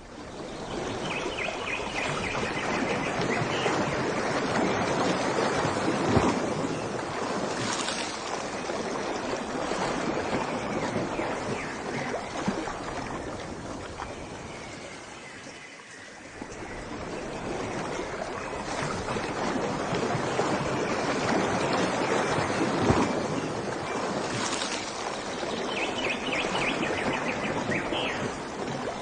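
Rushing water, swelling and easing with a lull about halfway. Birds chirp briefly near the start and again near the end.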